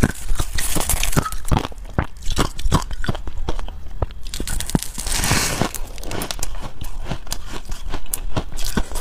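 Close-miked biting and chewing of a fluffy, snow-like block of ice soaked in passion fruit juice: dense, sharp crunching crackles, with a longer hissing crunch about five seconds in.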